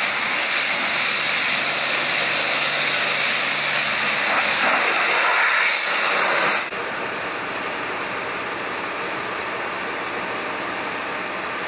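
Pressure washer spraying a jet of water against a van's bodywork, a loud steady hiss. About two-thirds of the way in it drops abruptly to a quieter steady hiss.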